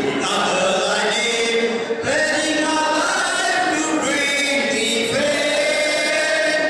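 A large group of voices singing together as a choir, holding long notes in phrases of about two seconds each.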